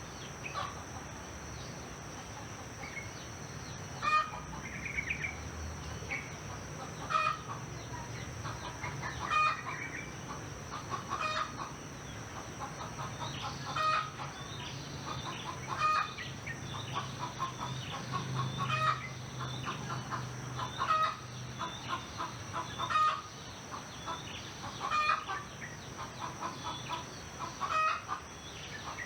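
Chickens clucking, a short call about every two seconds, over a steady high drone of crickets.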